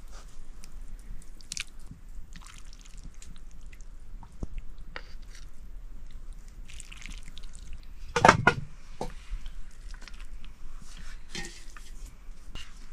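Soup noodles being eaten: chewing and wet slurping with small scattered clicks, and one louder burst about eight seconds in.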